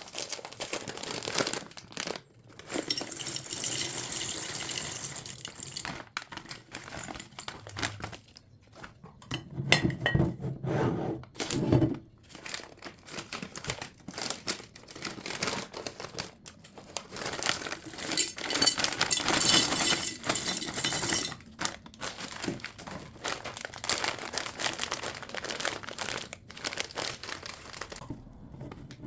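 Irregular crinkling and rustling, like packaging being handled, broken by short pauses and a few knocks.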